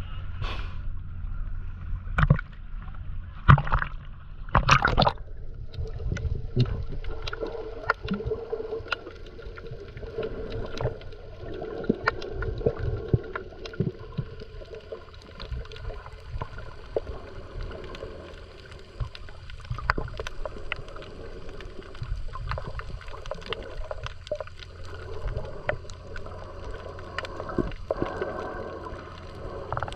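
Water gurgling and sloshing around the camera during snorkelling, with a steady low rumble and many scattered sharp clicks, and a few louder knocks in the first few seconds.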